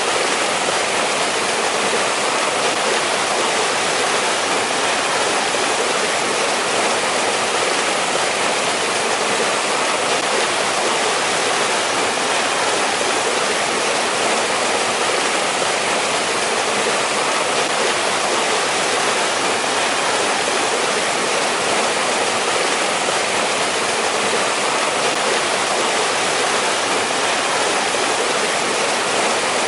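Mountain valley stream flowing over rocks, a steady rushing of water.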